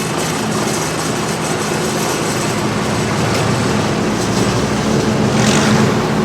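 Farm tractor diesel engine running steadily under a loud rush of working machinery, typical of a tractor-drawn forage harvester chopping corn. The noise swells a little near the end, with a brief hissing surge.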